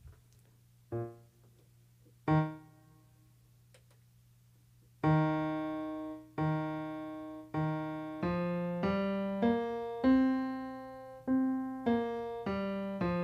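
Electronic keyboard with a piano sound playing the notes of the pentatonic scale one at a time, each struck and left to fade. Two separate notes come first, then a run of about ten notes that climbs and comes back down.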